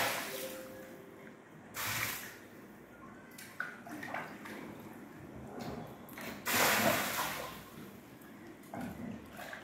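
Two cats eating a raw chicken: chewing and tearing, with scattered short clicks and three bursts of noise, each about half a second to a second long.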